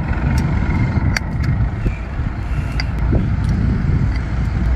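Steady low outdoor rumble, with a few small sharp clicks, about a second in and again about three seconds in.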